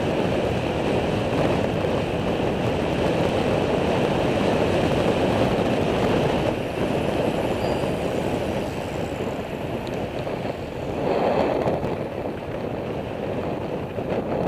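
Wind rushing over the microphone of a camera on a moving bicycle: a steady noisy rush that swells briefly about eleven seconds in.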